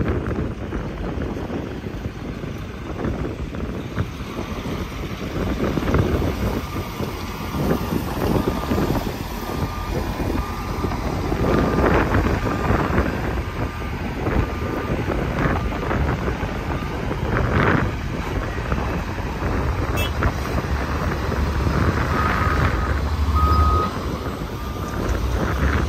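Heavy diesel truck running and reversing. Its backup alarm beeps about once a second from several seconds in, over the low sound of the engine.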